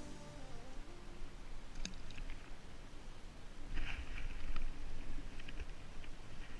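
Water sloshing and splashing around a sea kayak, with a few sharp clicks and knocks and a brief rougher splashing about four seconds in. The last notes of background music fade out at the start.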